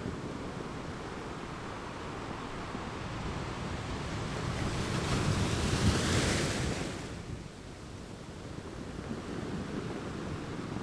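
Sea waves crashing on a rocky beach: a steady low surf rumble, with one wave building about four seconds in, breaking loudest around six seconds with a hissing wash, then drawing back.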